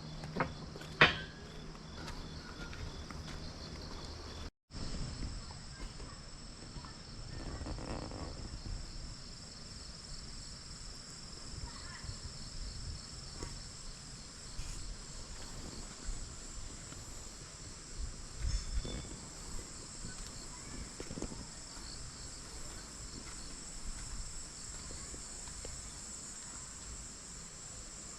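Insects, crickets by the sound of it, chirping in a steady high-pitched chorus, with a single sharp click about a second in.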